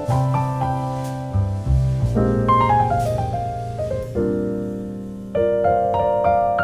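Background piano music: a mellow tune of struck, fading notes over bass notes, with a falling run of notes about halfway through.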